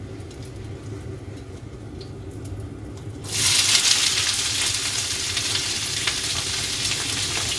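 Cubed onions hitting hot olive oil in a pan, bursting into a loud, steady sizzle about three seconds in, with light stirring clicks. Before that, only a low steady hum.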